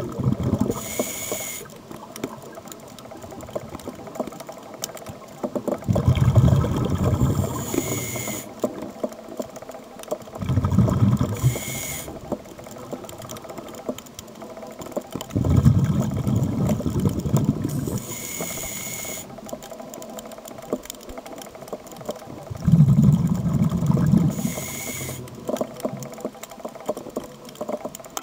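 Scuba diver breathing through a regulator underwater. Four exhalations, each a low bubbling rumble lasting one to two seconds, and each followed by a short hissing inhalation with a faint whistle. The breaths come about every five to six seconds, over a faint steady crackle.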